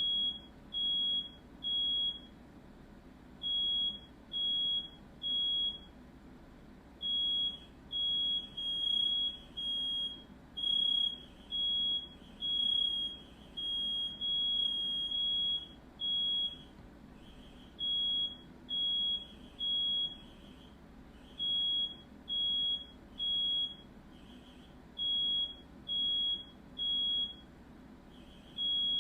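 Smoke alarm beeping at a high pitch in groups of three with short pauses between groups, the temporal-three alarm pattern. Around the middle the beeps come longer and closer together before the groups of three return.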